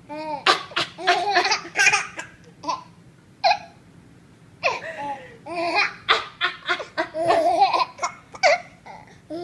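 A baby laughing hard in two bouts of giggles and belly laughs, the first about a second in and a longer one about five seconds in: the child is laughing at its mother's coughing.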